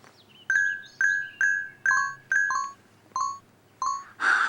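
A short run of about eight bright, bell-like chime notes, each struck and ringing briefly, stepping between a higher and a lower pitch, followed near the end by a brief shimmering swish.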